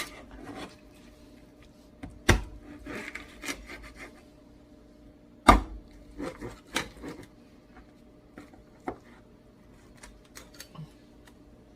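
Knife and cutting-board work on ribbonfish: a few sharp knocks on the board, the loudest about two and five and a half seconds in, with scraping and lighter clicks between them over a faint steady hum.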